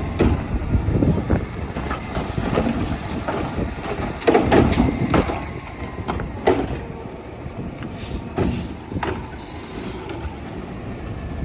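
Front-loading garbage truck running at the curb, its engine rumbling steadily while its front-fork carry can and arm make a series of clanks and knocks, the loudest about halfway through.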